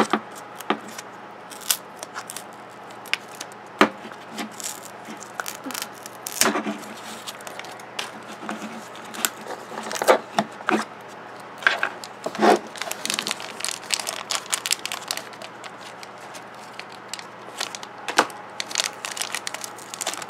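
Plastic blind-toy packaging being peeled, torn and crinkled by hand: irregular crinkles and rips with scattered sharp clicks of hard plastic parts.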